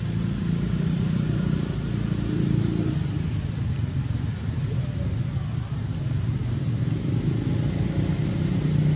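Steady low background rumble, with a faint thin high whistle in the first couple of seconds.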